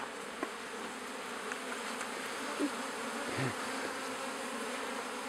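Honey bees from an open hive buzzing: a steady, even hum of many bees.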